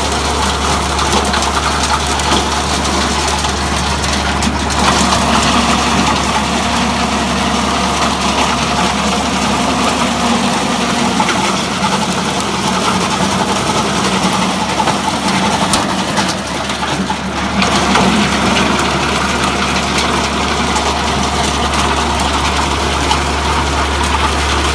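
TVT 190 branch chipper running off a tractor's PTO, the tractor engine and spinning chipper steady and loud while branches are fed through it; about two-thirds through the sound dips briefly and then picks up again.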